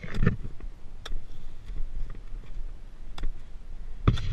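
Ice axes being driven into firm snow during a steep climb: about five crunching strikes, the loudest at the start and near the end, over a steady low rumble.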